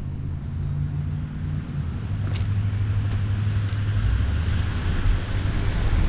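Car driving on a wet road, heard from outside the car: a steady low engine hum that shifts down in pitch partway through, under a hiss of tyres on wet pavement and wind that grows louder toward the end. A few faint clicks come in the middle.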